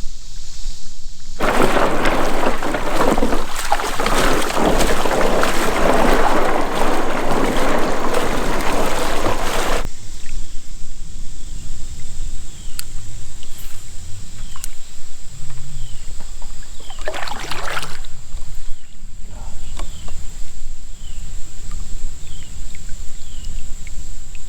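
Water rushing and splashing around a small boat floating the river, loud for about eight seconds and then cutting off suddenly; afterwards the water is quieter, with short high chirps repeating about once a second.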